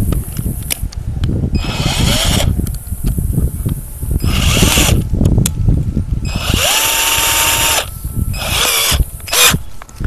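Cordless drill spinning a flexible dryer-vent cleaning rod and brush inside the vent duct, in about five short bursts, the motor whine rising as it spins up and falling as it stops each time. A low rumble comes between the bursts.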